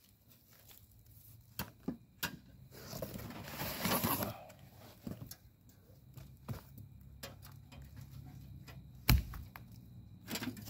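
Unpacking a metal camp wood stove from its cardboard box and foam packing: scattered clicks and taps of handling, a longer rustle of packaging about three to four seconds in, and one sharp knock about nine seconds in as the stove is handled.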